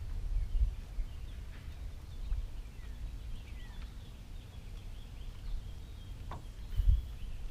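Small birds chirping, many short falling notes one after another, over a steady low rumble, with a soft low thump near the end.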